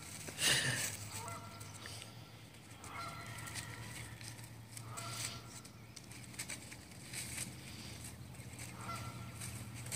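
Dry leaves rustling and crunching as a puppy scrabbles and pounces in them, loudest about half a second in. Short honking calls come through a few times in the background.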